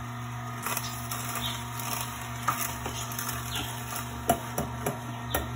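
Horizontal slow masticating juicer running with a steady low motor hum as its auger crushes celery stalks, with irregular cracks and crunches, the sharpest about four seconds in.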